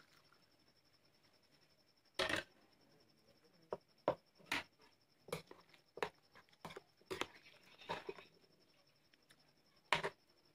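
Wooden pestle knocking and scraping against a glass bowl while stirring soup into smashed potato: a thump about two seconds in, then a string of short knocks about two a second, and one louder knock near the end.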